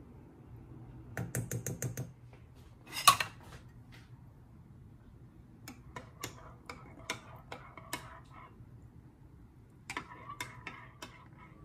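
A quick run of light taps, then one louder sharp clack about three seconds in, followed by a metal teaspoon clinking irregularly against the sides of a ceramic mug as it stirs coconut powder into coffee.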